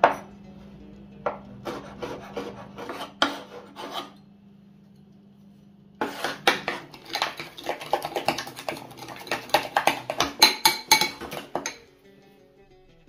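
Kitchen knife chopping fresh rosemary on a cutting board in quick runs of sharp taps and scrapes, pausing for a couple of seconds about four seconds in, then a longer, faster run that stops near the end.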